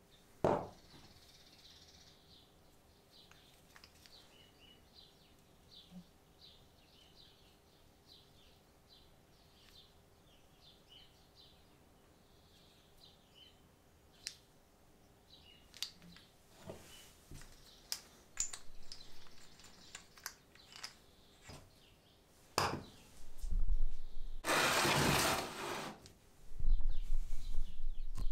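Faint bird chirps in the background, with scattered light clicks of small metal parts being handled. Near the end come a few loud knocks and a scraping noise lasting about a second, from handling on a wooden workbench.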